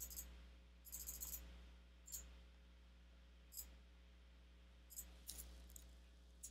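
Faint, scattered clicks of a computer mouse and keyboard over near silence: single clicks, with short clusters about a second in and again a little after five seconds.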